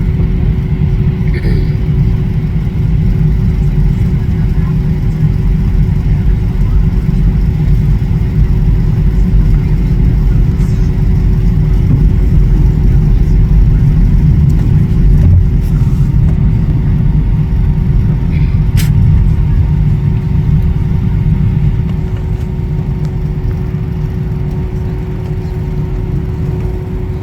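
Airliner taxiing on the ground: a loud, steady low rumble with a constant hum from the jet engines. It gets louder at the start, peaks in the middle and eases off a little near the end.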